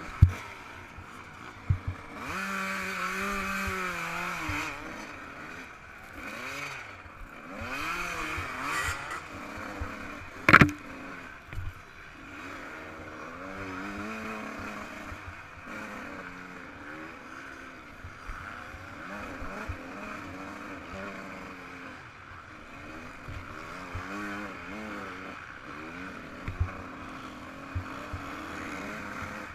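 Two-stroke Yamaha YZ125 motocross engine revving up and down as it is ridden, with sharp knocks just after the start and about ten seconds in.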